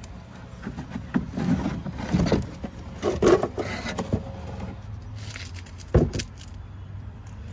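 Plastic fender liner of a VW Golf Mk7 being pulled and flexed out of the wheel arch: scraping, rustling and clattering of plastic, with one sharp knock about six seconds in. A steady low hum runs underneath.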